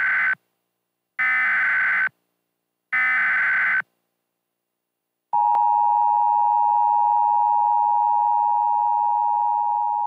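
Emergency Alert System SAME header: bursts of digital data tones, the tail of one and then two more about a second long each, followed about five seconds in by the steady two-tone EAS attention signal, heralding a flash flood warning.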